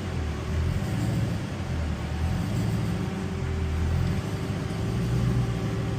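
Whipple-supercharged Hellcat 6.2 L Hemi V8 idling after a dyno pull, a lumpy, uneven low rumble as the idle settles. The idle is stabilizing quickly on the new tune.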